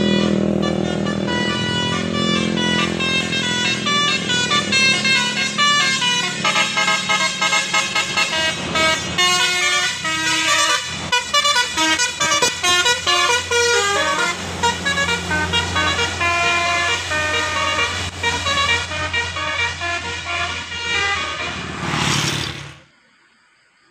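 Telolet bus horn, a set of electrically switched horns, playing a quick tune of changing notes; it stops abruptly near the end.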